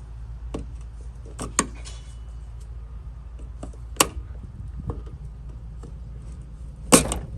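Scattered sharp clicks and light knocks, about six of them, from hands and a small tool working at the plastic switch in an SUV's liftgate, the loudest near the end, over a steady low rumble.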